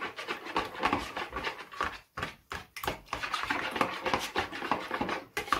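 A metal spoon beating egg, milk and oil in a plastic bowl: quick, uneven clicks and scrapes of the spoon against the bowl.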